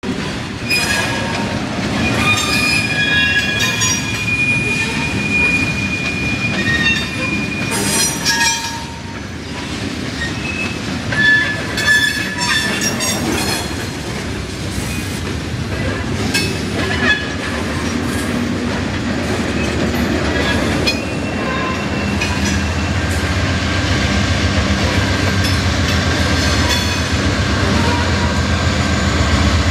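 Railroad freight cars of a CSX tie train rolling past, with steel wheels squealing on and off in high steady tones and clacking over the rail. From about two-thirds of the way in, the low running of the diesel locomotives grows as they come by.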